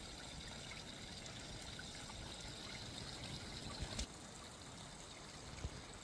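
Small spring rivulet trickling over a ledge into a hollow in the ground, a faint, steady splashing. A soft knock about four seconds in.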